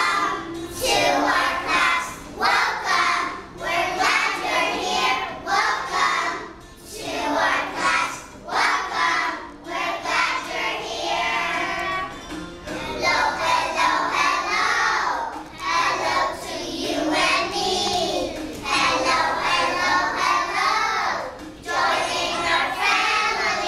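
A group of young children singing a song together in unison, in short phrases with brief pauses between them.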